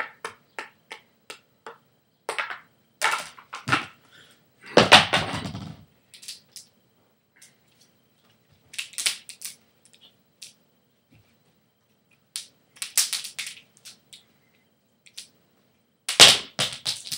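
Juggling clubs smacking into the hands at each catch, a run of sharp clicks at about three a second, then in quick clusters. About five seconds in, and again near the end, a louder, heavier thud with a clatter.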